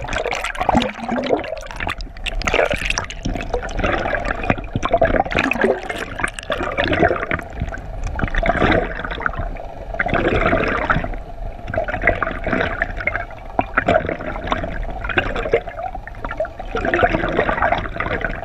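Water rushing and gurgling past a camera towed underwater, heard from below the surface, with a steady hum beneath it.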